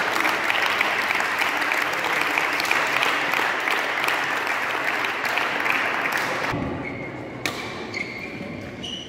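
Spectators applauding, dense clapping that dies away about six and a half seconds in; a few scattered knocks follow.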